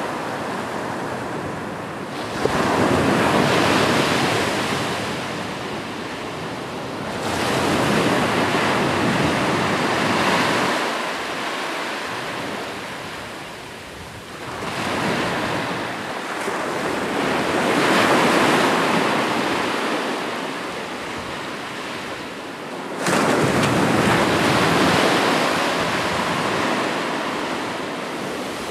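Ocean surf: waves breaking on a shore one after another in slow surges, about four in all, two of them crashing in suddenly, with the hiss of wash between.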